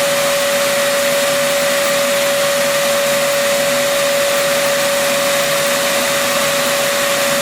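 Shapeoko CNC router spindle running at constant speed during a machining pass: a steady high whine over a broad hiss.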